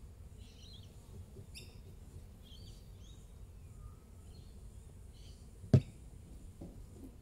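Bush birds chirping in short scattered calls over a low background rumble. About two-thirds of the way through comes one sharp knock, the loudest sound, followed by two faint knocks.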